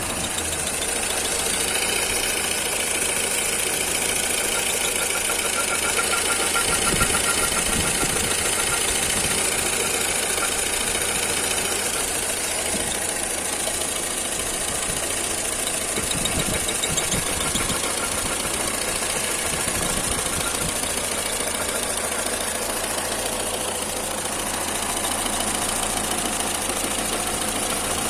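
Engine running steadily with a knocking noise that the owner cannot identify.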